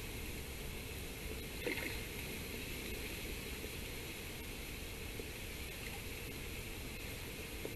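Steady hiss of river water and wind, with one faint splash about two seconds in from a hooked mullet being steered into a landing net.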